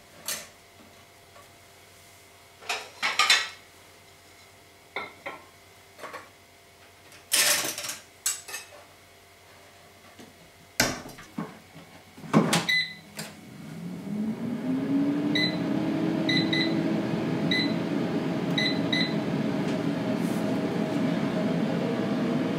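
Kitchen handling noises: a string of clicks and knocks as things are picked up and set down on the counter. About thirteen seconds in, an electric kitchen appliance starts up, its motor hum rising in pitch over a couple of seconds and then running steadily, with a few faint light pings, until it cuts off suddenly.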